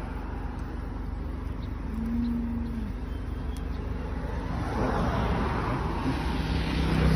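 Roadside traffic noise, with a vehicle passing close by near the end, its noise rising to a peak. A brief low tone sounds about two seconds in.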